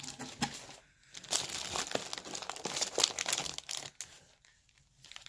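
Packaging crinkling and rustling as products are handled out of a gift box, a dense crackle that stops about four seconds in.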